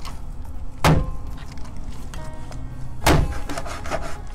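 Two heavy thunks about two seconds apart as a kitchen knife chops through a salmon rack onto a cutting board, over background music.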